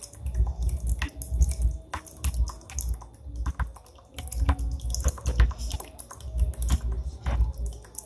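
A small stream of water pouring from a bamboo spout onto a little bamboo water wheel and into the fountain's basin: irregular trickling and splashing with sharp dripping clicks.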